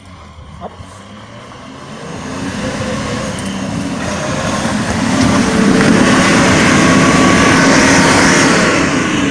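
Off-road 4x4's engine running hard under load, growing louder over about five seconds and easing slightly near the end.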